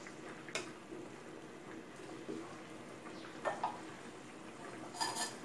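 A pot of green curry simmering with a low, steady bubbling, while utensils knock against the pot in three sharp clicks. The loudest click comes near the end.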